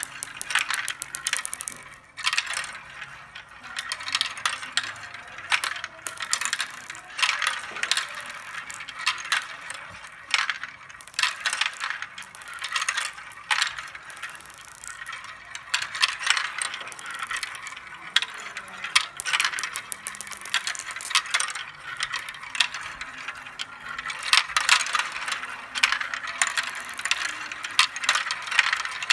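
Many glass marbles rolling and racing down a marble-run track, a dense crackling rattle of clicks and knocks as they strike the track and each other.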